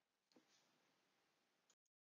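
Near silence: faint room tone between narrated lines.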